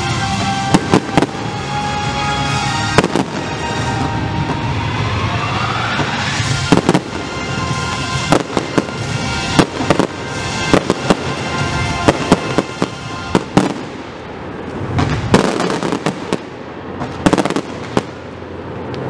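Aerial fireworks bursting overhead: an irregular string of sharp bangs and crackles, some in quick clusters, through the whole display. Music plays alongside during the first few seconds.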